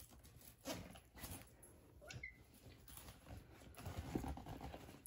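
Faint rustling and handling of a padded fabric bag, with one brief squeak about two seconds in.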